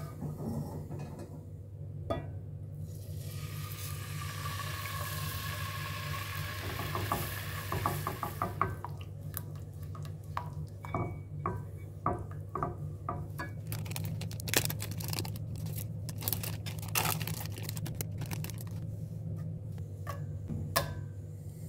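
Milk poured into a hot butter-and-flour roux in a nonstick pan, hissing for a few seconds, then a spatula stirring and scraping the pan with many short clicks against its coating. A steady low hum underneath.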